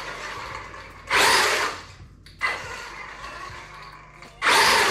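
1/16-scale brushless electric RC off-road truck driving across a tiled floor, with two hard bursts of throttle, about a second in and again near the end, and quieter running between.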